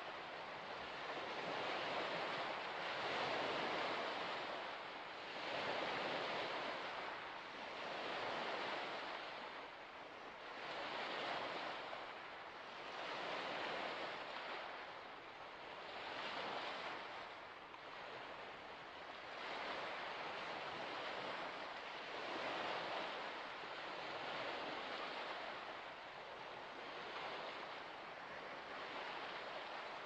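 Waves washing in, a rush of water that swells and ebbs about every two and a half seconds.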